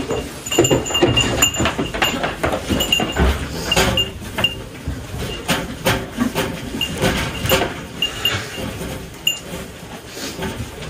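Nigerian Dwarf goats eating feed from plastic bowls, a busy run of many short clicks and knocks as they eat.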